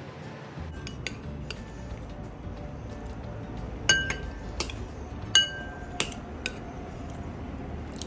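Metal spoon clinking against a ceramic bowl while scooping out the last of a meal. Scattered light taps, with two louder ringing strikes near the middle.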